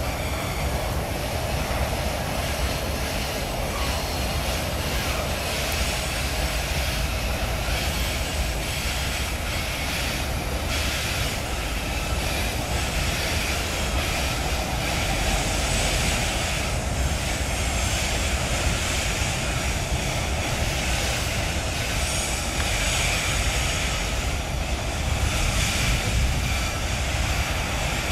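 Diesel locomotives of a freight train hauling hopper wagons across a viaduct: a steady drone of engines and rolling wheels that grows a little louder in the second half.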